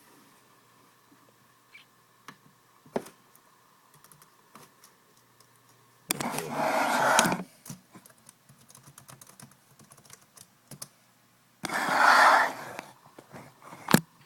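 Typing on a computer keyboard: two quick bursts of rapid keystrokes, about six seconds apart, with a few scattered single clicks between them.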